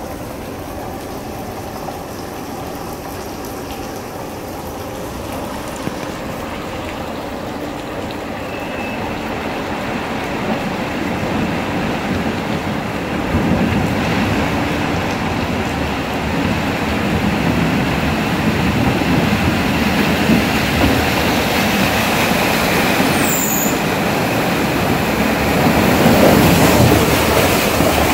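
Jeep Wrangler Unlimited driving through a long stone railway tunnel toward the listener, its engine and tyre noise growing steadily louder. It peaks as the Jeep passes close by near the end.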